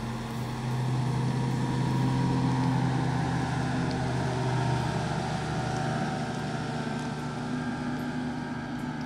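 Bass boat's outboard motor running at high speed on plane, a steady engine drone over the rush of water off the hull, easing off slightly near the end.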